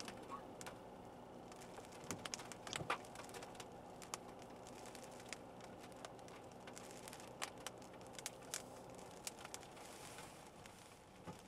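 Inside the cabin of a moving SsangYong All New Rexton: a low, steady engine and road hum, with scattered, irregular sharp ticks of rain striking the car.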